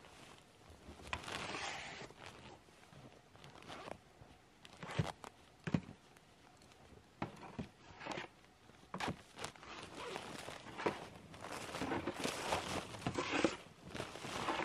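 Boots crunching in snow and the rustle of a packed hot tent's fabric as it is unstrapped and pulled out of its carry bag, with irregular sharp clicks and knocks from the straps and gear, most frequent in the second half.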